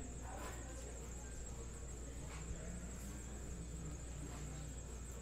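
Quiet room tone, a steady low hum with a thin high whine, under a few faint soft taps of trading cards being handled and set down on a table.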